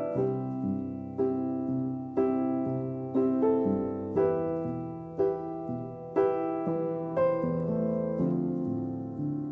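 Background music: a slow piano melody, a note or chord struck about once a second and left to ring.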